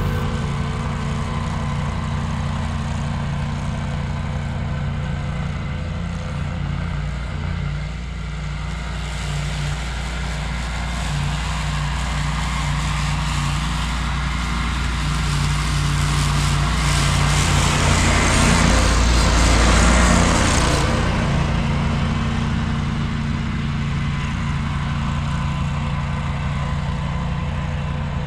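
Ventrac compact tractor running steadily under load with its Tough Cut deck mowing overgrown grass. The engine and cutting noise swell from about a third of the way in to a peak about two-thirds through, then ease back to the earlier level.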